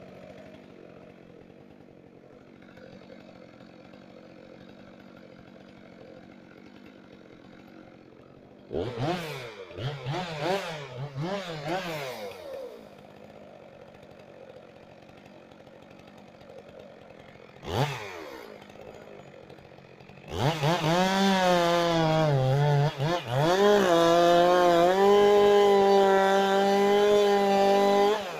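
Chainsaw idling quietly, then revved in several short blips. About two-thirds of the way through it goes to full throttle and keeps running hard, cutting wood, with its pitch dipping and recovering under load.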